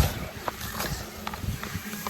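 Small chunks of white sand-cement crumbling, heard as a run of sharp crackling clicks and crunches over soft low thuds, the loudest crunch at the very start.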